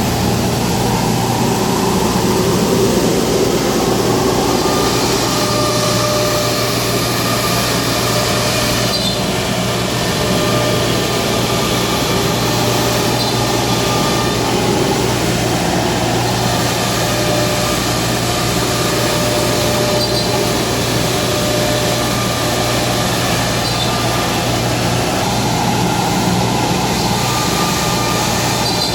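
CNC router running: a steady loud motor hum with cutting noise, and higher whining tones that come and go every few seconds.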